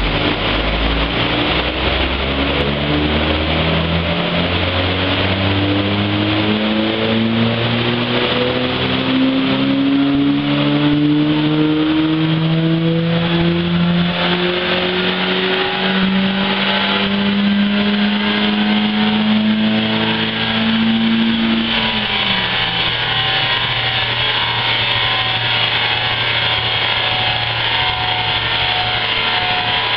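A car engine fitted with a cone air filter is pulling at full throttle on a chassis dynamometer. Its revs climb steadily for about twenty seconds in one long power run, then drop sharply as the throttle is released. After that it settles to a steady lower hum.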